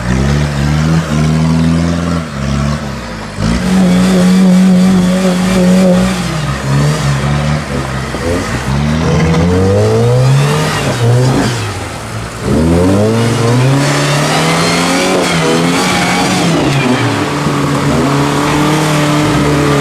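Off-road 4x4 SUV engines revving hard under load in deep mud, their pitch rising and falling again and again as the throttle is worked. There is a short lull about twelve seconds in.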